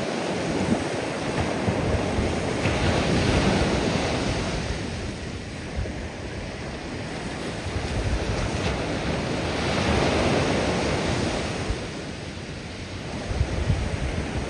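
Waves breaking and washing onto a beach, the surf swelling and fading every few seconds, with wind buffeting the microphone in a low rumble.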